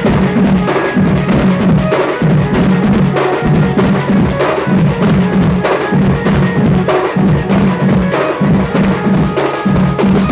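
Sambalpuri folk drumming: fast, dense, continuous beats on deep-toned drums.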